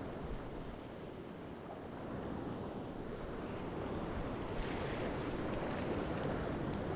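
Sea surf washing steadily against the shore, with wind rumbling on the microphone.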